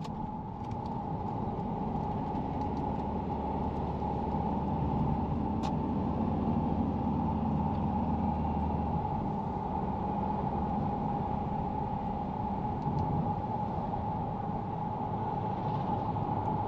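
A moving vehicle's steady road and engine noise: a constant hum with a low rumble that eases about nine seconds in.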